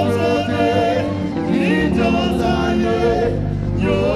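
Live gospel praise music: singing over band accompaniment with a steady bass line.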